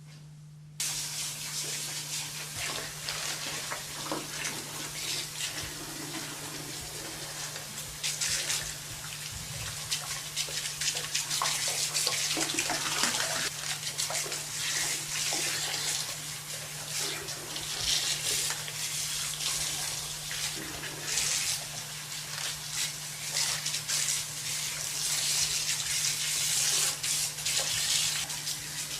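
Water running and splashing from a salon washbasin spray onto hair, switched on suddenly about a second in and then running unevenly. A steady low hum sits underneath.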